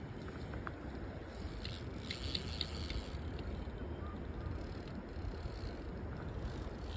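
Wind rumbling on the microphone over the steady rush of a shallow river, with a few faint clicks about two seconds in.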